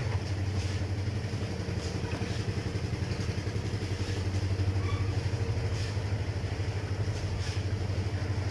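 An engine running steadily at a constant speed, with a few faint light knocks over it.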